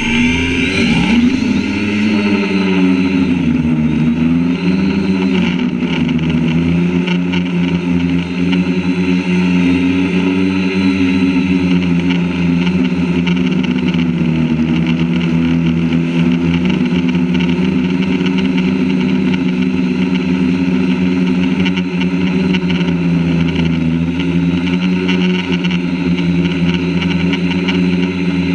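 Quadcopter drone's electric motors and propellers running, heard close up from a camera mounted on the drone's frame. The whine rises as the motors spin up for lift-off and wavers in pitch over the first few seconds, then settles into a steady hum.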